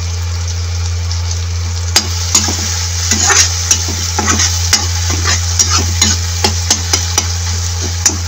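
Chopped onions and tomatoes sizzling as they fry in oil and butter in a pan, stirred with a utensil that scrapes and taps against the pan about two seconds in and on until near the end. A steady low hum runs underneath.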